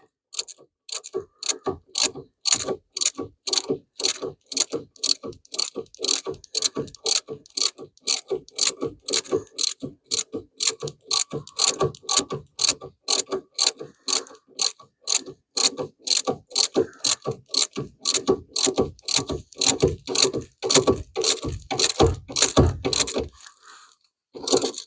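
Hand ratchet wrench clicking steadily as a bolt is tightened, about three clicks a second. The clicking stops about a second before the end, then a few more clicks follow.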